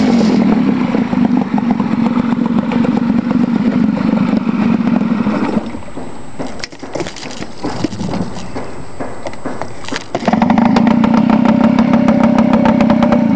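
Mariner 5 hp two-stroke outboard running in a test barrel with its propeller churning the water. About six seconds in it drops to a quieter, uneven idle with ticking, then picks back up to the louder, steady churning run about four seconds later.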